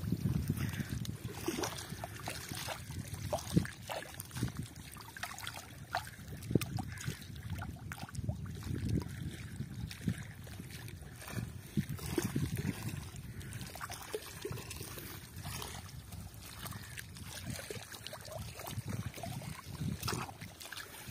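Water trickling and lapping at the edge of a lake, with scattered light clicks and knocks over a steady low rumble.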